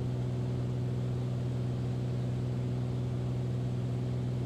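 Beechcraft Bonanza's single piston engine and propeller droning steadily in cruise, heard from inside the cabin as an even low hum with a noise bed.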